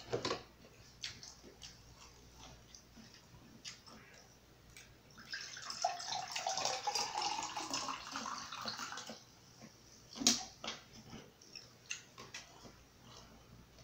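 Water poured from a plastic pitcher into a drinking glass for about four seconds, starting about five seconds in. About a second after the pour stops comes a sharp knock, with a few small clicks before and after.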